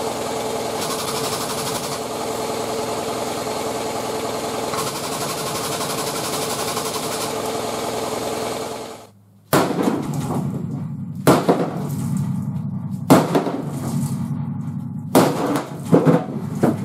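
The hydraulic pump of a 10-ton frame straightener runs steadily as the machine pulls on the pickup's bumper, stopping about nine seconds in. After it, a string of sharp metal knocks and clanks follows, one every second or two.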